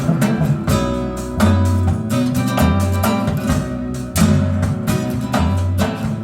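Recorded music played back over a high-end loudspeaker system: plucked and strummed acoustic guitar over deep, sustained bass notes.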